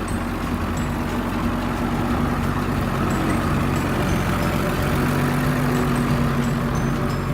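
Case MXM155 tractor's diesel engine running steadily under load while pulling a five-furrow plough, building slightly in loudness.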